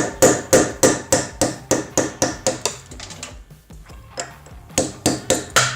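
Hammer blows on a metal punch, driving a broken drill bit out of a drilled hole: a fast run of sharp strikes, about three a second, a short pause just past halfway, then a few more strikes near the end.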